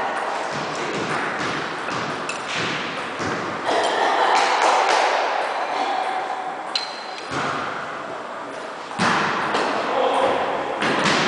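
Partner knife-defence drill: arms slapping and blocking, feet shuffling on a wooden floor, and clothing rustling, heard as scattered thuds and sharp clicks in a large hall.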